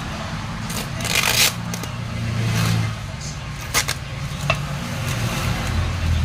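Rustling and scraping of packaging being pulled off a wrapped car ECU, with a few sharp clicks, over a low steady hum.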